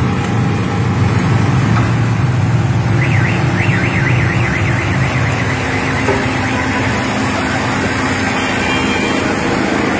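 A steady low engine hum. About three seconds in, a high-pitched tone warbles rapidly up and down for about two seconds.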